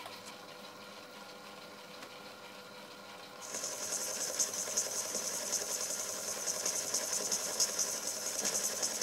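Myford lathe running with its four-jaw chuck spinning, a low steady hum. About three and a half seconds in, a much louder, high, steady hiss starts as a boring tool cuts the bore through the bronze-and-steel axle-box.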